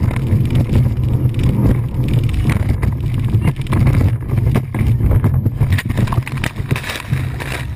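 Speedboat running at high speed: a steady engine drone under wind rush, with the hull knocking and slamming on the water, and water crashing over the boat near the end.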